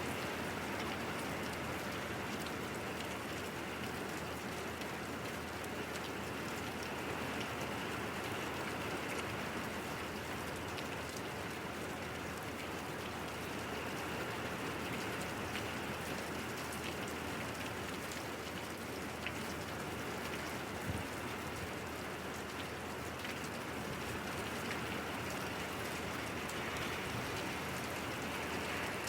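Steady rain falling, with many fine drop clicks.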